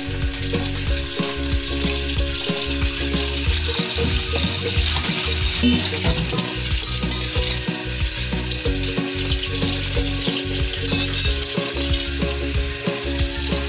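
Tap water running and splashing onto cooked sweet-potato starch noodles in a stainless steel mesh strainer as hands toss them to rinse and cool them, with background music underneath.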